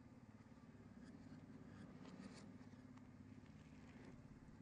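Near silence: a faint steady low hum with a few faint ticks.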